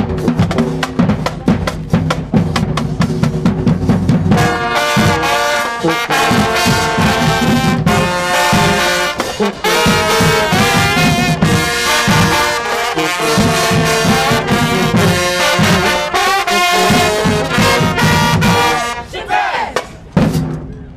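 Marching band playing: drums beat out a rhythm alone, then brass horns come in about four seconds in, playing over the drums until the music thins out near the end.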